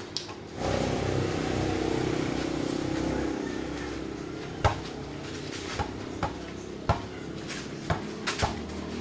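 A vehicle's engine running close by, coming in about half a second in and slowly fading over the next few seconds. In the second half, a basketball is dribbled on hard-packed dirt: a series of sharp, uneven bounces that are the loudest sounds.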